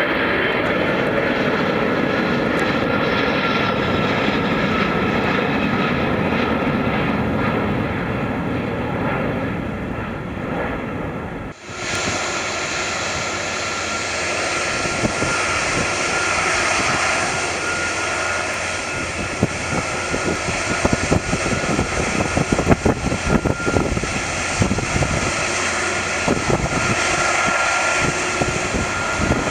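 Jet airliner engines at takeoff power. First a Boeing 747 climbing out, then, after an abrupt cut about twelve seconds in, a twin-engine Boeing 777 on its takeoff roll and climb-out. A steady high whine runs over the rumble, which grows rougher and more uneven near the end.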